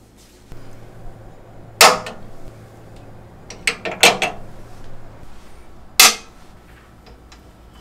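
Sharp clicks of small magnetic hooks snapping onto steel shelving. There is one click about two seconds in, a quick cluster of three around four seconds, and a last loud one about six seconds in.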